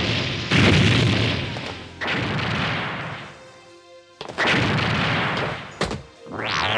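Cartoon explosion sound effects: three booming blasts about a second and a half apart, each dying away, then a sharp crack and a rising whoosh near the end, over background music.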